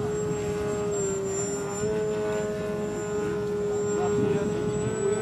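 Radio-controlled bumblebee-shaped model plane in flight, its motor and propeller giving a steady drone that dips a little in pitch about a second in and comes back up near two seconds. Gusty wind noise on the microphone underneath.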